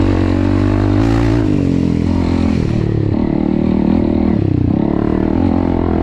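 Honda CRF300L's single-cylinder four-stroke engine running under load on a rocky climb, its revs dropping about halfway through and rising again near the end as the throttle changes.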